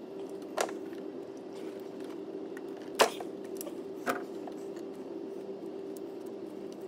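Three short, sharp knocks, the loudest about three seconds in, as a diesel fuel injector and its hold-down clamp are worked back into the cylinder head of a 1.6 TDI engine. A steady low hum runs underneath.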